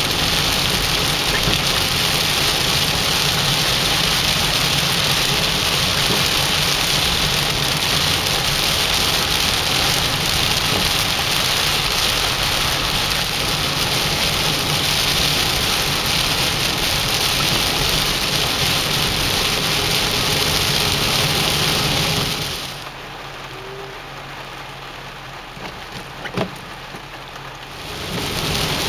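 Heavy rain, a steady loud hiss, with a low steady rumble underneath. About three-quarters of the way through it drops sharply to a much quieter level for about five seconds, then returns.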